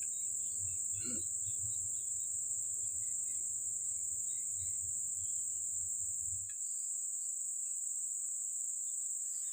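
Steady chorus of insects: a continuous high-pitched drone that does not change.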